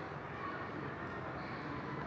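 Steady road traffic noise from passing vehicles, with no horn sounding.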